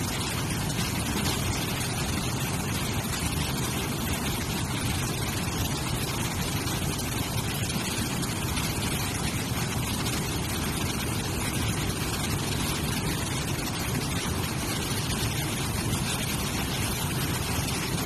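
Steady rush of a flood-swollen waterfall pouring into its churning plunge pool, one even roar of water with no change.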